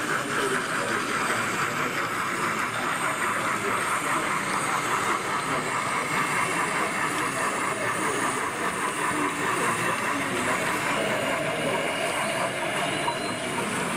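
00 gauge model steam tank locomotive running along the layout with a rake of coaches: a steady hiss with a fast, even rhythm.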